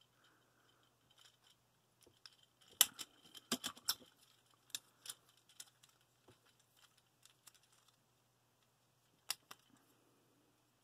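Plastic parts and ratchet joints of a Transformers War for Cybertron Springer figure clicking and tapping as it is transformed by hand: scattered sharp clicks, a quick cluster about three seconds in, then a few single clicks.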